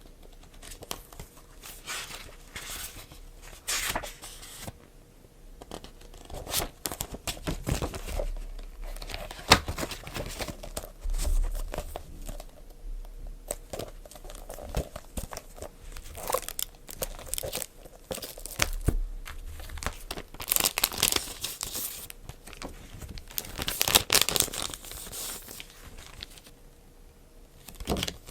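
Book packaging being torn open and crinkled by hand, in irregular rustles and crackles with two louder bursts of tearing near the end.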